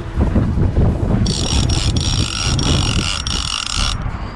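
Fishing reel drag buzzing as a hooked shark pulls line off, starting about a second in and stopping just before the end, over wind buffeting the microphone.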